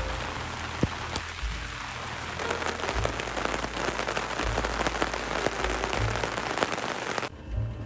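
Steady rain with many individual drops striking a surface close by; it cuts off abruptly near the end.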